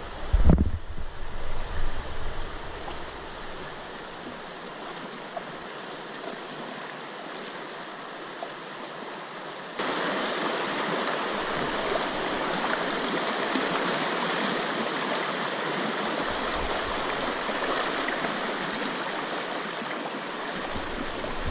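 Shallow river water rushing over rapids, a steady noise that gets louder about ten seconds in. A few low thumps in the first two or three seconds.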